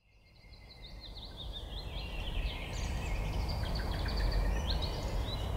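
Many birds calling with short wavering chirps over a steady low rumble, fading in from silence over the first couple of seconds.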